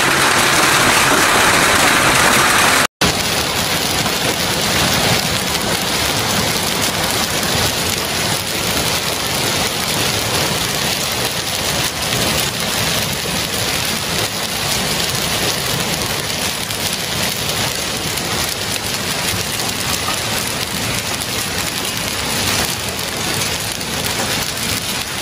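Heavy hail pelting pavement and parked cars: a dense, steady clatter of hailstones. The sound drops out for an instant about three seconds in, then carries on a little quieter.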